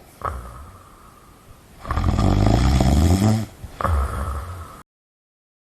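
A person snoring: a long, loud low snore about two seconds in, followed by a shorter one, then the sound cuts off suddenly.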